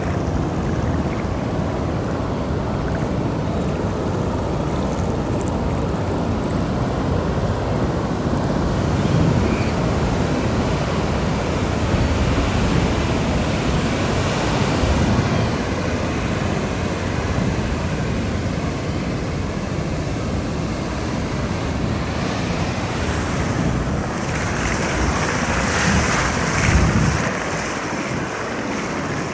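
Ocean surf: waves breaking and washing up a shore in a continuous rush, with one wave swelling louder about 25 seconds in.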